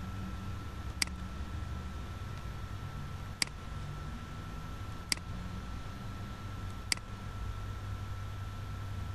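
A computer mouse clicking four times, single sharp clicks a second or two apart, over a steady low hum and a faint high whine.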